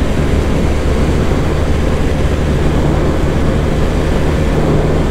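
Bajaj Dominar 400's single-cylinder engine running hard at high revs in fifth gear at about 140 km/h, with a steady engine note under heavy wind rush over the microphone.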